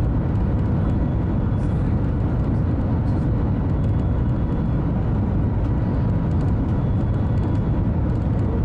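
Steady low rumble and rush of the Shanghai Maglev train running at speed, heard inside the passenger cabin.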